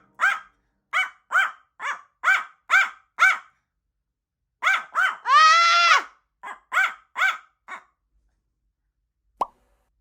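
Small dog barking in quick, high-pitched yaps, about a dozen in two runs, with one longer drawn-out bark that rises and falls in the middle; it is barking to wake its sleeping owner. A single brief click comes near the end.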